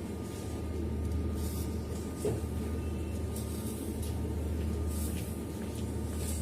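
A steady low mechanical hum with a faint, thin higher whine, and a light knock about two seconds in.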